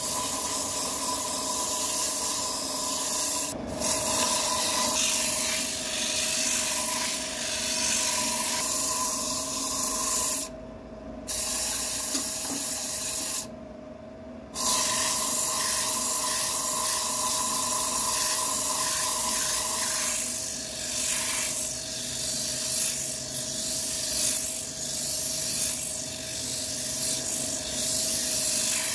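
Sandpaper pressed against a wooden workpiece spinning on a wood lathe: a steady rubbing hiss over the lathe's motor hum. The sound drops away briefly twice, about a third of the way in and again near the middle.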